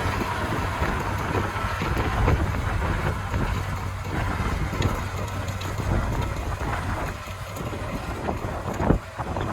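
Challenger 875C tracked tractor running steadily under load while pulling a tillage implement through soybean stubble. The engine hum dips slightly late on, and there is one sharp knock near the end.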